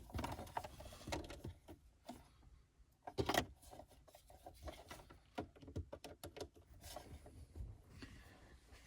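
Faint handling noises as gear is moved and connected: scattered clicks, taps and rubbing, with one louder knock a little over three seconds in.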